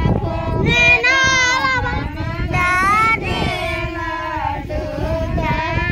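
A high-pitched female voice singing a devotional folk song, a wavering melody with held and sliding notes.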